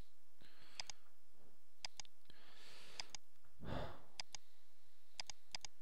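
Sharp clicks of a computer mouse, mostly in press-and-release pairs, about six times at intervals of roughly a second. A breath is exhaled close to the microphone a little past the middle.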